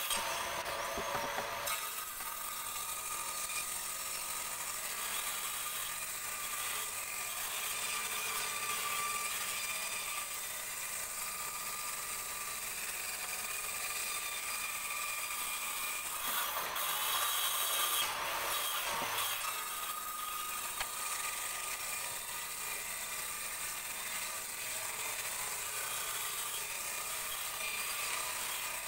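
Bench-mounted circular saw running with a steady whine while a teak board is fed along its blade. The cutting grows louder and fuller for a few seconds past the middle.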